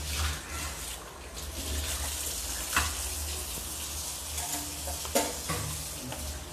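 Creamy prawn carbonara sauce simmering in a wok while a ladle stirs it, with sharp clinks of the ladle against the pan about three and five seconds in, over a steady low hum.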